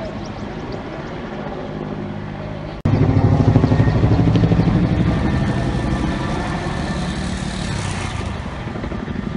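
A motor vehicle's engine running steadily with a fast, even pulsing. About three seconds in there is an abrupt cut to a louder engine sound.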